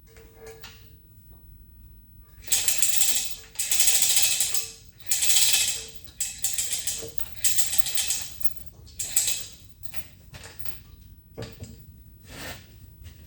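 Metal rattling and clicking in several bursts of about a second each, then a few lighter knocks: the cast-iron ram of a Zocca 500 metal shaper being jiggled and eased back into its ways.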